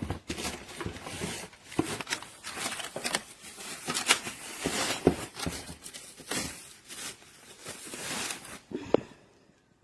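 Product packaging being torn open and handled during an unboxing: irregular tearing, crinkling and rustling, with a short sharp click about nine seconds in.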